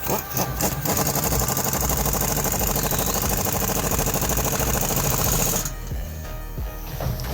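Impact driver driving a 3-inch lag bolt through 2x6 flooring into the frame: a few short trigger bursts, then a rapid, steady hammering for about five seconds that stops suddenly. Background music plays throughout.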